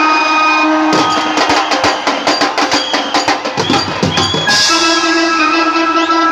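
Procession band music: a melody of held notes, broken about a second in by a run of fast drum strokes lasting about three and a half seconds, after which the held melody carries on.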